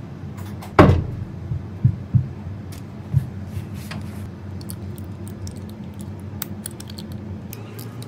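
A sharp knock about a second in, three softer knocks over the next two seconds, then a run of light scattered clicks and ticks over a steady low hum.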